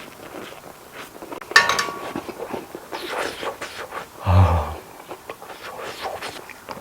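Eating sounds: chewing and small clicks and clinks of utensils on dishes, with a sharp clink about a second and a half in and a short low hum from the eater about four seconds in.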